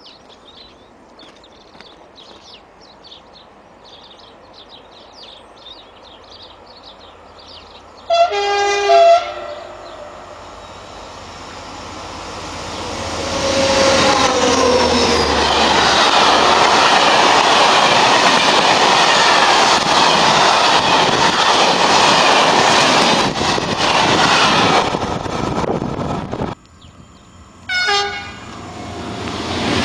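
Faint high chirping, then a train's two-note horn blast about a third of the way in. An SNCF Infra works train then passes close by, a loud rumble with clattering wheels that builds and holds for about twelve seconds. After a sudden cut, another train's horn sounds near the end and the next train starts to pass.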